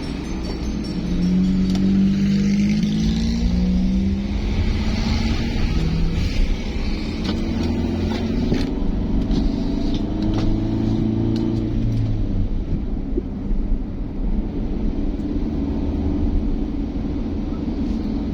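Road vehicle engine running with a steady rumble and road noise, its pitch rising and shifting several times over the first twelve seconds as it accelerates.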